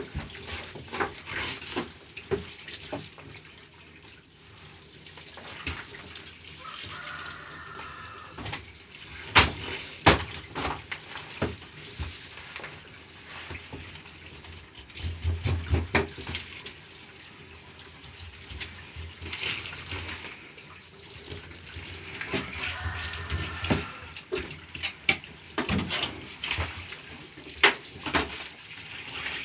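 Tap water running steadily into an outdoor fish-cleaning sink, with scattered knocks and scrapes as tilapia are scaled and filleted with knives on the bench.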